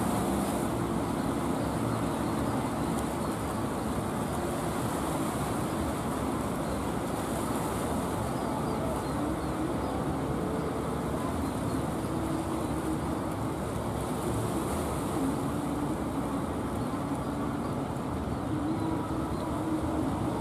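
Engines of several wooden fishing boats running steadily as they come in at speed, a continuous drone with a faint wavering hum, over the wash of their bow waves.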